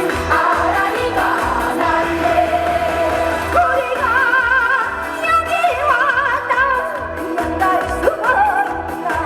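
Trot song performed live: a woman singing with strong vibrato over backing music with a steady beat.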